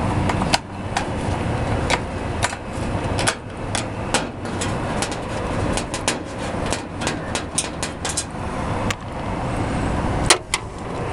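Water from a hose spraying and splashing, rinsing foaming cleaner out of a rooftop unit's condenser coil, full of irregular crackles and ticks over a steady low rumble.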